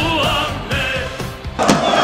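Background music with a sung vocal line with vibrato. About a second and a half in, a football crowd chanting and shouting cuts in suddenly and louder.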